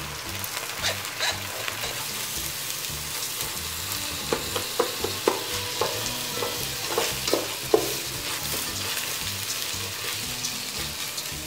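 Washed rice and sliced onions sizzling in hot ghee in an aluminium pot, being stirred with a wooden spatula. There is a steady frying hiss throughout, and a run of short knocks and scrapes of the spatula against the pot between about four and eight seconds in.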